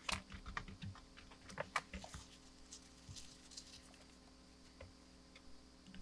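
Quiet clicks and taps of a small Bakelite toggle switch and its brass contacts being handled and fitted back together by hand. They come in a quick cluster over the first two seconds, then a few scattered clicks.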